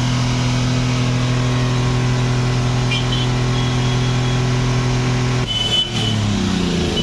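Hyundai Xcent diesel engine held steady at raised revs, then the throttle is released about five and a half seconds in and the engine speed falls back toward idle. It runs much smoother now that its carbon-clogged EGR valve has been cleaned, though not yet fully right.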